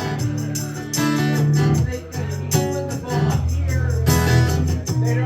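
Acoustic band playing an instrumental break between verses of a folk song, with strummed acoustic guitar over steady low notes.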